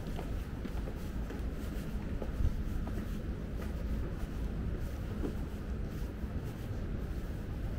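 Ambient city noise: a steady low rumble with faint scattered clicks, and a brief knock about two and a half seconds in.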